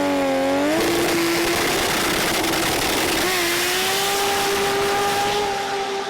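Drag-racing car engine revving up sharply, then running flat out under a loud rush of noise; its pitch steps up about three seconds in.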